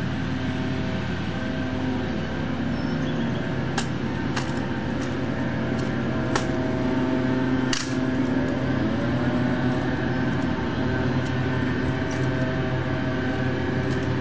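Sharp clicks and snaps of a bayonet-fixed M14 rifle being handled during a ceremonial rifle inspection, several between about four and eight seconds in, the sharpest near eight seconds as the rifle is passed back. A steady low hum runs underneath.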